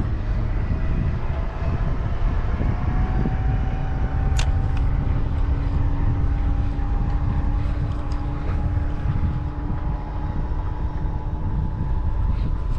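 Boat's outboard motor running under way, its pitch rising slowly, over a heavy low rumble of wind and water. A brief click sounds about four seconds in.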